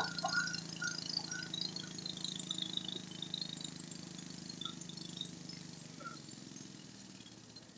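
Modified garden pulling tractor's engine running at a low, steady speed, fading gradually as the tractor moves off, with a few faint short high clinks over it.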